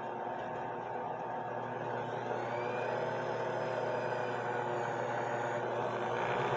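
Belt-driven watchmaker's lathe running steadily with a whir, spinning a clock wheel in a Jacobs chuck while a rag is pressed against the wheel to polish it.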